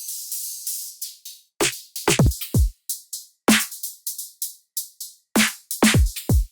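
Electronic drum pattern played from Ableton drum racks: deep kicks that drop sharply in pitch, with short snappy hi-hat and snare hits, and a cymbal hiss fading out over the first second. The beat cuts off abruptly at the end.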